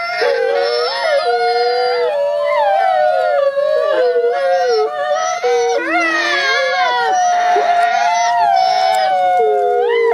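Two white wolves howling together in a chorus of long, overlapping howls, one voice held at a steady pitch while the other slides up and down.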